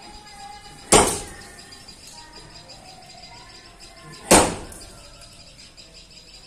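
Two sharp knocks, about three and a half seconds apart, over faint bird chirping.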